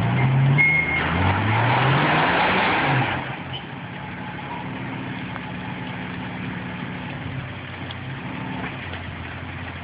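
Vehicle's engine revved hard against its automatic transmission's torque converter, rising in pitch with a loud rushing hiss for about three and a half seconds, then dropping back to a steady idle. The driver is loading up the torque converter to get the vehicle to move.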